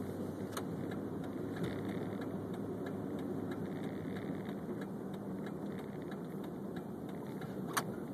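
Car driving along, with steady engine and road rumble and a couple of sharp clicks or rattles, the last one near the end.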